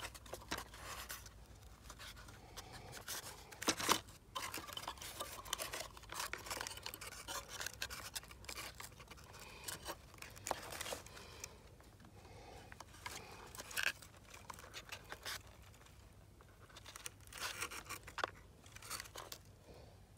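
Rustling and crunching of movement through long grass, with scattered clicks and a sharper crunch about four seconds in.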